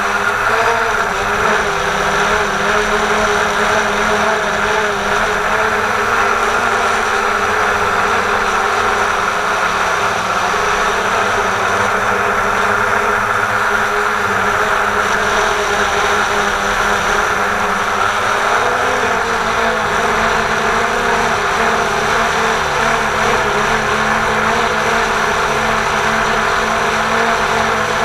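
Quadcopter drone's electric motors and propellers whirring steadily in flight, heard close up from the camera mounted beneath it, with a slight shift in pitch about two-thirds of the way through.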